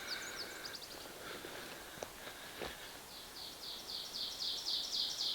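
A bird singing in the wetland: a few short high chirps, then, about three seconds in, a run of quick repeated notes, about four a second, growing louder. Two faint clicks come in between.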